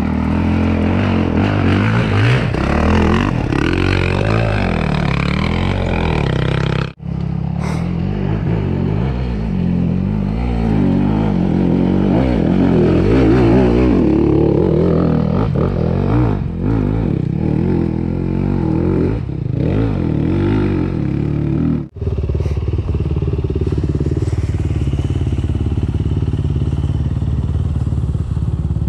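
Dirt bike engines revving and running through rough woodland trail riding, with the pitch rising and falling as the throttle is worked. The sound breaks off sharply twice, about 7 and 22 seconds in, and in the last stretch the engine runs more steadily.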